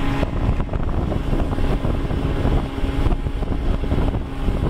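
Snowmobile engine running at a steady travelling speed across snow, with wind noise on the microphone.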